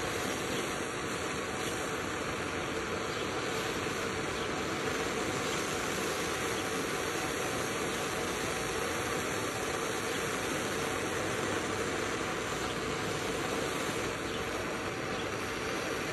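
Handheld propane torch burning with a steady, even hiss as it heats a new steel bolt until it is very hot, ready to be blackened in oil.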